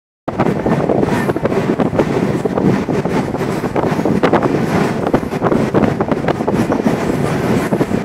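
Passenger train crossing a long bridge, heard from aboard: a steady loud rumble with a dense, irregular clatter of wheels on the rails.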